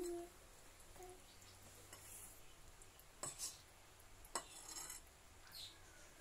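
Wire whisk stirring batter in a ceramic bowl: faint scraping and a few light clinks of metal against the bowl, the clearest about three seconds and four and a half seconds in.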